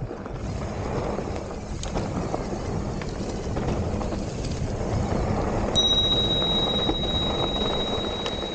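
Mountain bike riding over a dirt trail: continuous tyre and rolling noise with rattling of the bike. About six seconds in, a steady high-pitched squeal starts abruptly and holds.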